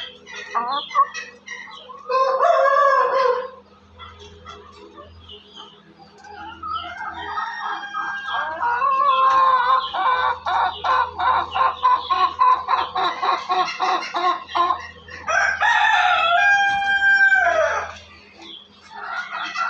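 Ayam Cemani chickens calling: a short call about two seconds in, a long run of rapid clucking through the middle, and a rooster's crow ending in a falling note near the end.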